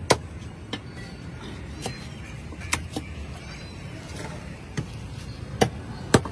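Large knife chopping through a catla fish's scaled body onto a wooden stump chopping block: sharp whacks, about eight at uneven spacing, over a low steady rumble.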